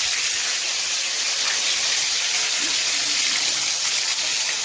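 Hot oil sizzling steadily in a kadai with cumin seeds and tomatoes frying in it: an even, hissing sizzle.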